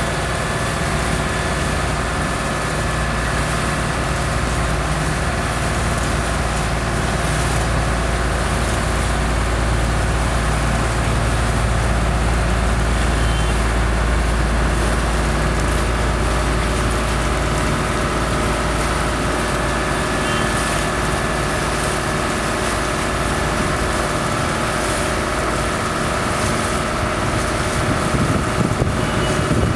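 Boat engine running steadily with a low drone and even hum. The drone eases somewhat about two-thirds of the way through, under a wash of water and wind noise.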